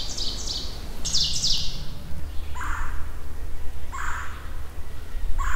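Birds calling: rapid high chirps for the first two seconds, then a harsh call repeated about every second and a half, over a low steady rumble.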